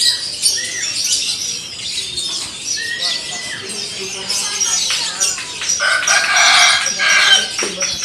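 Many caged songbirds chirping and whistling all at once, with a clear whistled note about three seconds in. About six seconds in, a louder call lasting about a second and a half stands out above them: a rooster crowing.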